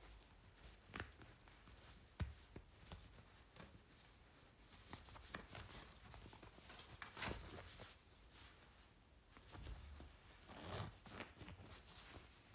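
Faint handling of denim jeans and their paper hang tags: soft rustles, scrapes and a few small clicks, with a louder rustle about seven seconds in and again near eleven seconds.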